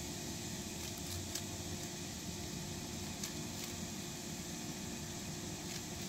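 Steady background hiss and low hum, with a few faint clicks of a Rubik's cube's layers being turned by hand.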